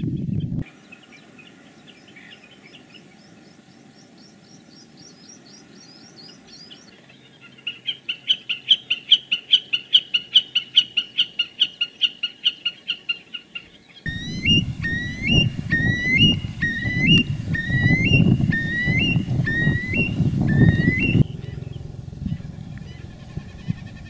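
A sequence of bird calls: a common snipe's rapid chipping song, high sharp notes at about five a second, runs for several seconds. It cuts to a loud low rumbling noise with another bird's rising, hooked call repeated about one and a half times a second.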